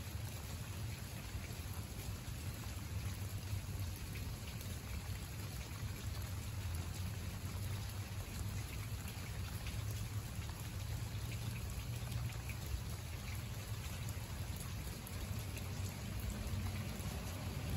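Steady rain falling on a garden bed of leaves and mulch and on wet pavement, with many small drop ticks over an even hiss and a low rumble underneath. The noise swells slightly near the end.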